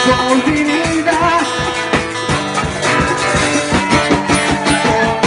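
Live band playing an upbeat song, guitar over drums keeping a steady beat.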